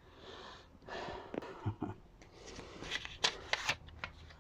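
Rustling and scraping of laserdisc jackets and packaging being handled, with several sharp clicks, most of them bunched together near the end.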